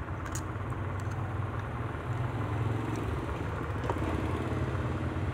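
A steady low mechanical hum, with a couple of faint clicks of small objects being handled, one near the start and one about four seconds in.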